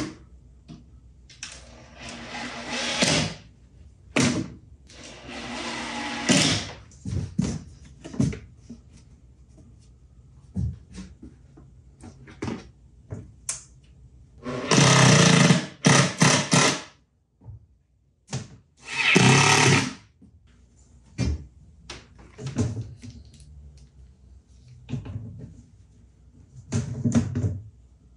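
Hands-on work on a plywood cabinet: a series of short rasping bursts, each a second or two long, between knocks and clicks.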